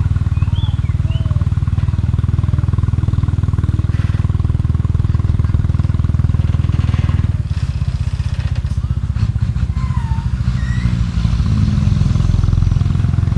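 Heavy diesel engine running with a deep, steady rumble, easing off a little about halfway through and picking up again near the end.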